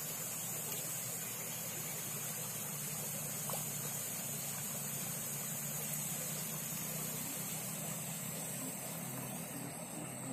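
Steady outdoor background noise: an even low hum, like a distant motor, under a constant high-pitched hiss, with no distinct events.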